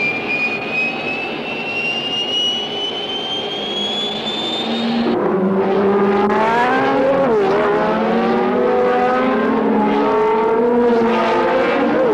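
A jet aircraft's high whine rising slowly in pitch, cut off abruptly about five seconds in by racing car engines revving hard. The engines' pitch climbs through the gears and drops sharply at the shifts, with several engines overlapping.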